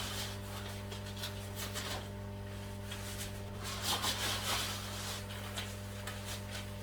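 Steady low electrical hum with faint rubbing and rustling of PVC clothing as the wearer moves, a little louder about four seconds in.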